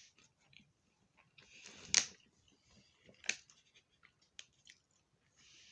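A person chewing fried fish and tater tots close to the microphone, with wet mouth clicks. The loudest click comes about two seconds in, with a short hiss around it, and another sharp click follows just after three seconds.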